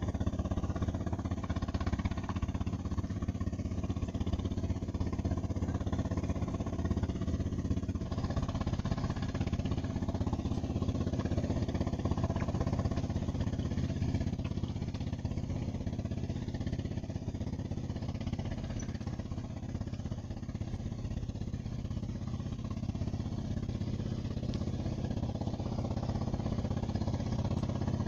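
Boat engine on the river running steadily, a low, even drone that holds without a break.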